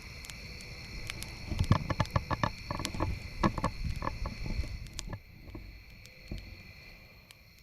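Campfire crackling, with scattered sharp pops that come thick and loud for a few seconds about a third of the way in, then thin out. A steady high insect chorus runs behind it and breaks off for the last couple of seconds.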